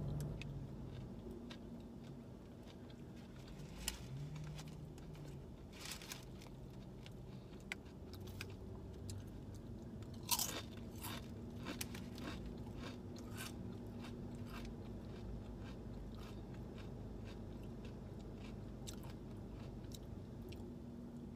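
Close-up chewing and biting of a soft sub sandwich, with scattered small clicks. About halfway through, SunChips multigrain chips are bitten and chewed in a run of sharp, loud crunches lasting a few seconds.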